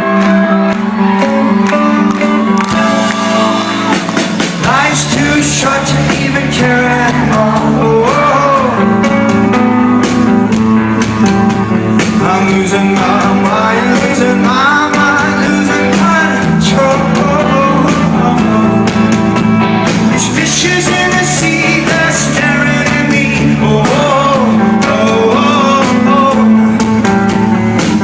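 Rock band playing live with a male lead singer. The low end fills in about four seconds in, and the singing runs on over sustained chords.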